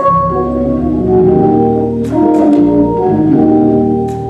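Organ playing slow, sustained chords that change every second or so, with a few short, sharp taps about two seconds in and again near the end.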